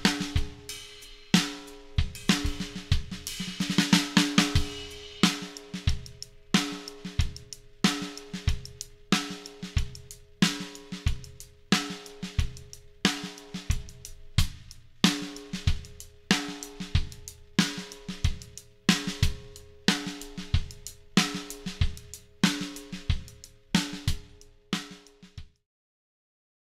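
Drum kit groove built around a 7x14 maple and Douglas fir stave snare drum, with kick, hi-hat and cymbals; the snare rings on after each backbeat. There is a busier fill about four seconds in, and the playing stops about a second before the end.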